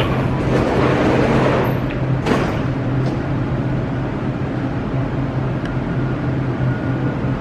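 Metro train standing at the platform with its doors open, giving a steady low hum. A hiss swells and fades over the first two seconds, and a sharp click comes a little after two seconds in.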